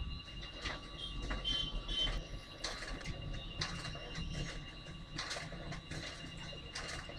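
Plastic clicks, knocks and rattles as an HP DesignJet T830 plotter's ink cartridge holder is handled, its wire connector plugged in and the unit set into the machine, over a steady high-pitched whine.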